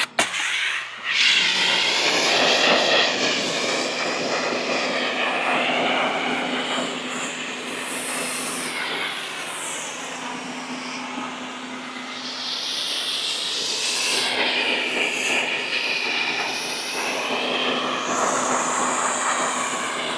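Greenworks 1900 PSI electric pressure washer spraying: the motor and pump hum steadily under a strong hiss of high-pressure water blasting mold off siding. The hiss changes tone as the spray moves across the surface. The sound cuts out briefly near the start, then resumes.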